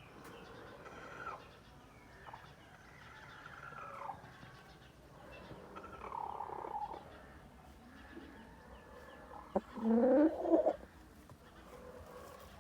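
Birds calling: several short calls that fall in pitch, then a louder, lower call about ten seconds in, just after a sharp click.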